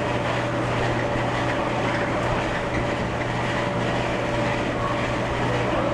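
Carousel drive running steadily on its newly installed main shaft: motor, chain and gearing give a constant low hum with a thin steady whine over an even mechanical rumble.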